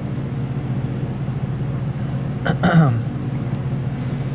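Steady low hum running throughout, with a short falling vocal sound from a man, like a grunt or 'hmm', between two and three seconds in.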